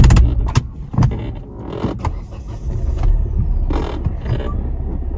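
Hyundai i20 car working slowly up a rough, broken mountain road: a steady low engine and road rumble, with several sharp knocks and creaks from the body and suspension roughly a second apart, the loudest at the start.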